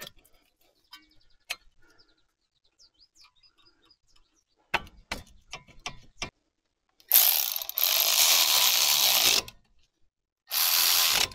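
Ratchet wrench at work on the brake caliper bolts: a handful of separate clicks, then two longer, loud spells of fast ratcheting about seven and ten and a half seconds in.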